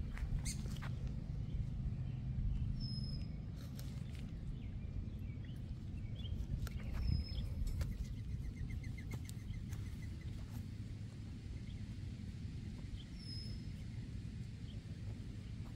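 Outdoor garden ambience: a steady low rumble under a few short, high bird chirps and a brief rapid trill of even ticks in the middle, with scattered light clicks and scrapes.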